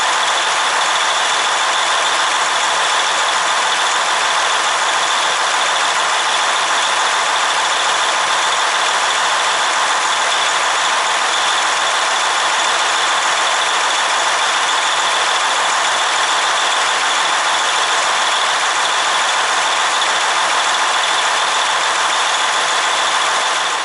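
Detroit DD15 inline-six diesel running at a steady idle, freshly started on a newly installed fuel pump after hand priming. It doesn't sound right to the mechanic.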